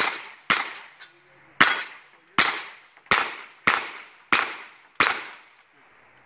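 Pistol-caliber carbine fired in single shots, eight shots in about five seconds at an uneven pace, each trailing off in a short echo.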